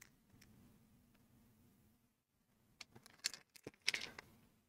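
Quiet at first, then about three seconds in, a short run of crinkles and crackles as plastic sticker-sheet packets are handled on a desk.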